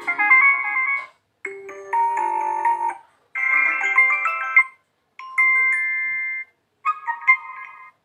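Vivo V23 Pro phone speaker playing previews of its notification tones one after another: about five short chimes and jingles, each a different little tune, with a brief silence between them as each list entry is selected.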